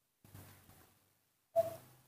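A newborn monkey feeding from a bottle gives one short, faint squeak about a second and a half in. The rest is quiet.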